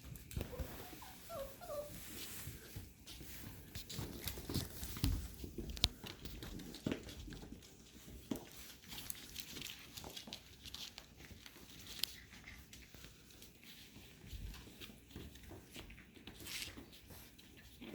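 Goldendoodle puppies: a few short, high whimpers about a second in, followed by many small clicks and scuffles of the pups moving about.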